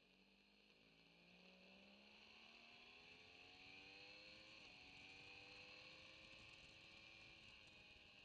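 Motorcycle engine, heard faintly, accelerating out of a corner: its pitch climbs steadily, drops briefly at an upshift about four and a half seconds in, then climbs again under a steady high hiss.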